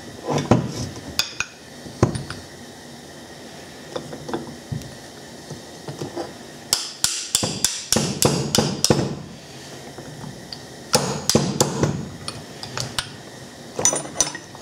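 Hammer striking the steel end cap and bearing of a Sno-Way snow plow's DC motor armature to knock them off, in runs of quick sharp metallic blows, several a second, with pauses between the runs. The bearing being driven off is worn out and badly damaged.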